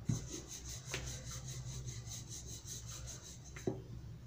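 Wooden rolling pin rolling out wheat-flour dough on a marble countertop: a soft, steady rubbing with a few light knocks, over a steady low hum.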